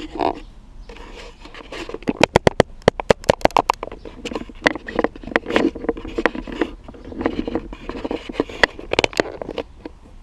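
A quick run of sharp clicks, then scraping and rubbing with scattered clicks, as the new shift knob is twisted and tightened down onto the Jeep Wrangler TJ's shift lever.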